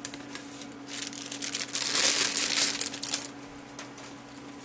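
Paper cards, a letter and packaging rustling and crinkling as they are handled and laid down, loudest for about a second in the middle.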